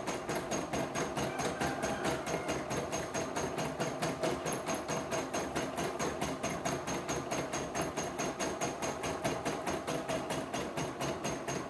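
CNY E960 computerized embroidery machine stitching out a design, its needle bar clattering in a rapid, even rhythm of many stitches a second with a steady hum underneath.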